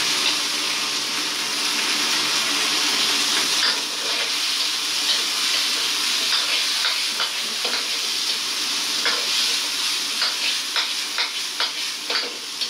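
Meat and chopped chilli sizzling in a hot oiled wok while a metal ladle stir-fries them. The ladle's scrapes and knocks against the wok come more often in the second half.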